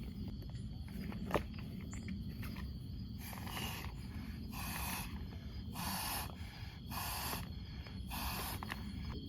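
Footsteps on the forest floor, a regular crunch about once a second, from someone walking uphill. A single sharp click about a second in.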